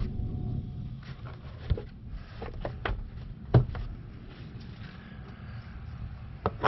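A few scattered sharp knocks and clicks over a low rumble, the loudest about three and a half seconds in, like hands handling parts and tools.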